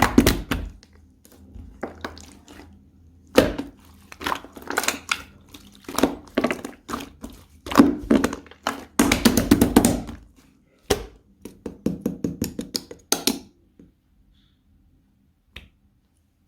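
Hands squeezing, pressing and poking slime, making dense runs of sticky clicks, pops and squelches. It stops about three seconds before the end, leaving only one small tick.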